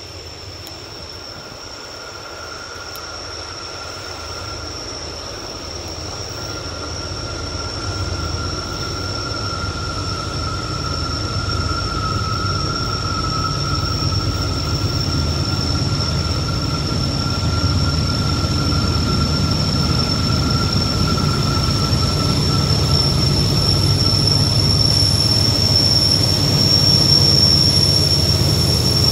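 Norfolk Southern diesel locomotives approaching on a freight train, their low engine rumble growing steadily louder as they near. A steady high-pitched wheel squeal runs over it.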